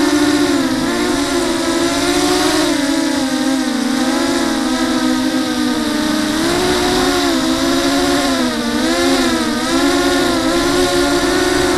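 Brushless motors and propellers of a TenTech Thug 250 FPV quadcopter, heard close from the onboard camera, whining steadily with the pitch wavering up and down as the throttle changes.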